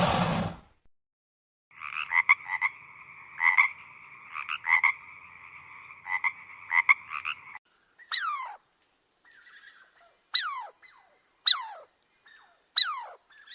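Frog calls: a steady two-toned trill with rhythmic pulsing accents for several seconds, then four short calls that fall sharply in pitch, one to two seconds apart.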